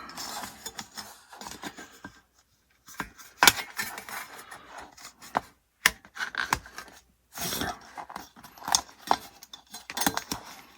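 Parts of a folding hobby sanding board being handled and folded on a bench: irregular sharp clicks and taps mixed with short rubbing scrapes.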